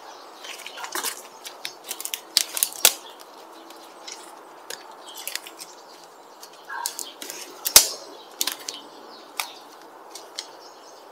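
Thin branches cracking and snapping as they are cut and broken: an irregular run of sharp cracks and clicks, the loudest about two and a half, three and nearly eight seconds in.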